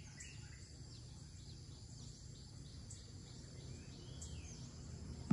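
Faint outdoor ambience: a steady high insect hum, with a run of small repeated chirps, about three a second, through the middle.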